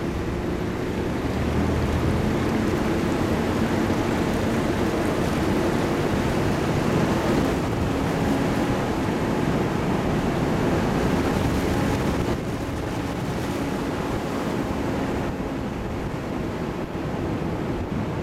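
Toyota 4Runner driving slowly along an off-road trail: the engine running under steady tyre and road noise, with wind noise on the microphone. A few low engine tones stand out in the first half.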